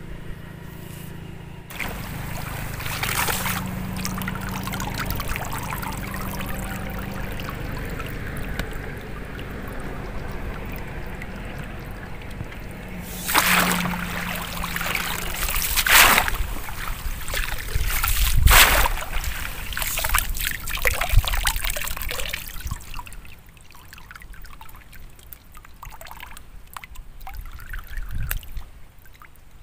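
Muddy pond water sloshing and splashing as a long-handled scoop net is swept through it, with several sharper splashes in the middle. Later it goes quieter, with water trickling and dripping from the lifted net.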